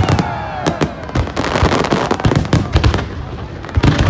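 Aerial fireworks exploding in quick, irregular succession: many sharp bangs, some close together.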